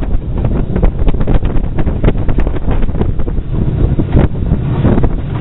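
Loud, gusty wind buffeting the microphone over the running noise of a moving steam train, with the Beattie 2-4-0 well tank locomotive working close by.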